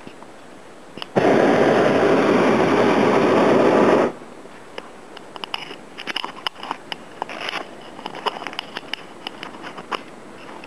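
Hot-air balloon's propane burner firing in one blast of about three seconds, starting about a second in and cutting off sharply. Afterwards there is a run of small scattered clicks.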